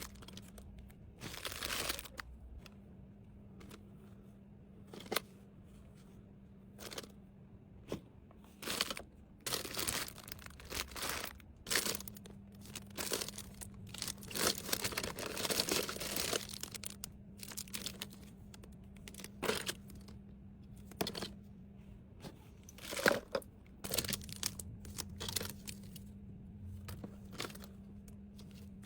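Plastic packaging crinkling and rustling as small items are handled and packed, in irregular short bursts with a longer stretch of rustling about halfway through. A faint steady low hum runs underneath.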